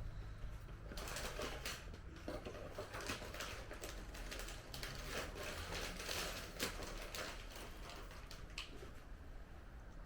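A cardboard box and its packaging being opened and handled: irregular rustling, scraping and light clicks, starting about a second in, over a low steady hum.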